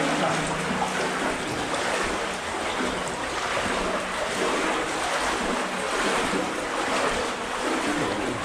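Water sloshing and splashing steadily around legs wading through a water-filled culvert tunnel.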